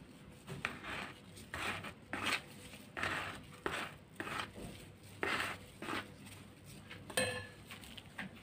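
Plastic spatula stirring powdered sugar into creamed butter in a plastic bowl: irregular soft scraping strokes, with one sharper knock about seven seconds in.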